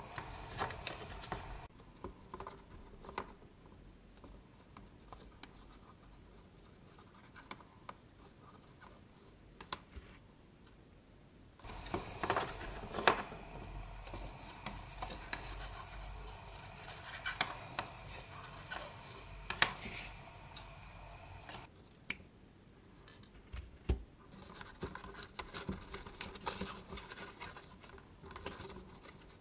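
Thin wire being wrapped and twisted around strips of toilet-roll cardboard, giving irregular scratching and small clicks of wire against cardboard.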